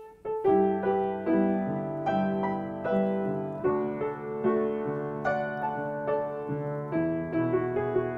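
Instrumental piano music: a melody over chords, with notes struck every half second or so that each fade away.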